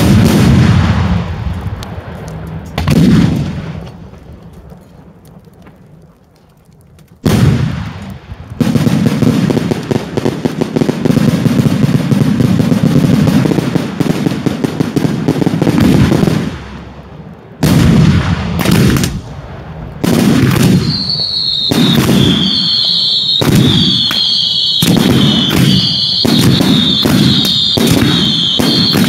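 Daylight fireworks display: heavy bangs at the start and again about three seconds in, a short lull, then a dense, continuous barrage of explosions. After a brief pause comes a fast run of sharp bangs, joined in the last third by shrill, wavering whistles from whistling fireworks.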